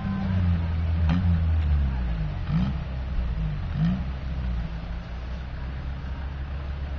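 Land Rover Defender's engine revved in four short bursts as it works through deep mud, then settling into steadier, lower running for the last few seconds.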